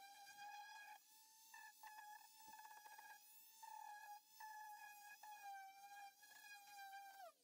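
Faint high whine of an electric sander's motor running on the fibreglass hull, its pitch wavering a little and dipping briefly a few times, then falling as it winds down and stops near the end.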